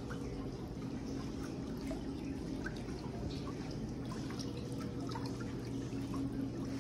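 Water trickling and dripping in a pedicure chair's basin, over a steady low hum.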